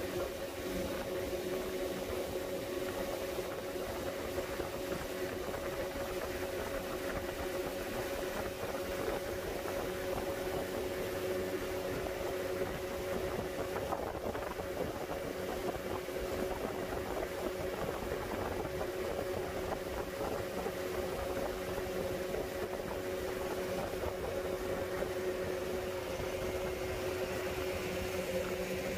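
A boat's engine running steadily at an unchanging speed, while the boat moves to a new fishing spot.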